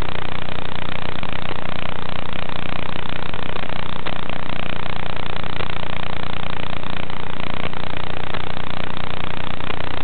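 Steady loud static hiss with a low buzzing hum, the audio channel of an analog FPV video link recorded by the goggles, not the quad's motors. It does not change as the quadcopter goes from sitting disarmed to flying.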